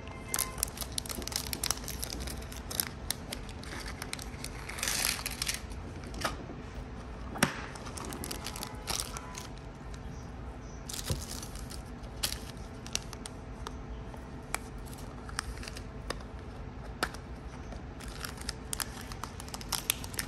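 Thin plastic zip-lock bags crinkling and rustling as they are handled and opened, with scattered light clicks and taps of small clear plastic storage boxes and metal nail charms.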